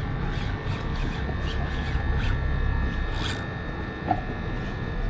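Low steady rumble of the boat's engine idling with wind and water noise, and a few faint irregular clicks from the spinning reel and rod as a hooked fish is fought, one a little sharper about three seconds in.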